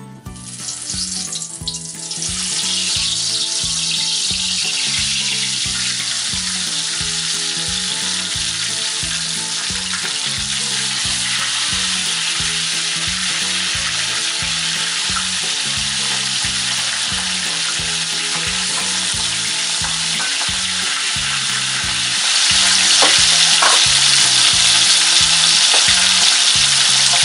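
Catfish pieces frying in hot oil in a wok: a steady sizzle that builds up about two seconds in and gets louder about 22 seconds in.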